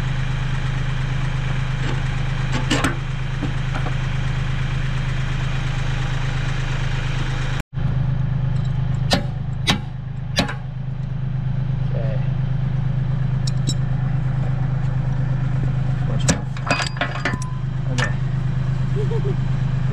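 Compact tractor engine idling steadily, with a few sharp metallic clanks from the back blade and three-point hitch being handled, mostly in the second half.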